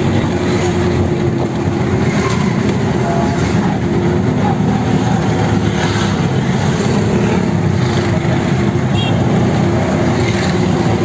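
Auto-rickshaw engine running steadily, heard from inside the open passenger cabin while under way, with the noise of the surrounding road traffic.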